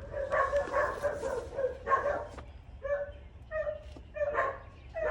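A dog barking over and over in answer to a knock at the door: a quick flurry of barks, then single barks about every half second.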